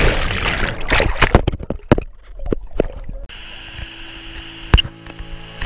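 Water bubbling and splashing with scattered knocks, underwater around the microphone. About three seconds in it changes abruptly to a steady rush of river water, with one sharp click near the end.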